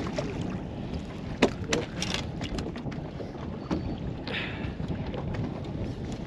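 Wind rushing over the microphone and water lapping at a boat hull. About a second and a half in come a few sharp knocks and splashes as a hooked walleye is swung out of the water and lands on the boat's deck.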